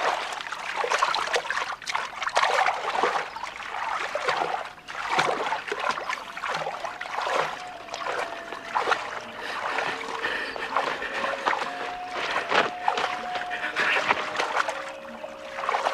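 Water splashing and sloshing heavily, with someone thrashing about in it. Faint held music notes come in about halfway through.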